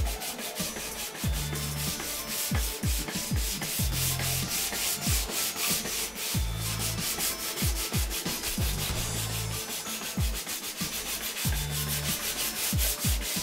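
500-grit sandpaper on a rubber sanding block rubbed back and forth in quick, repeated strokes over a metal panel coated with cured Auto Air sealer, smoothing the sealer for a base coat. A deep, repeating beat runs underneath.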